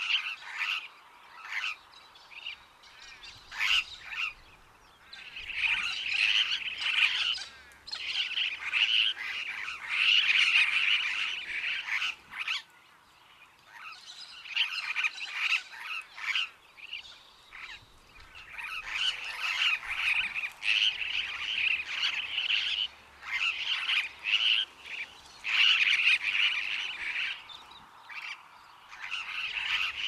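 Superb parrots calling: bouts of rapid, screechy, chattering notes lasting a few seconds each, broken by short pauses.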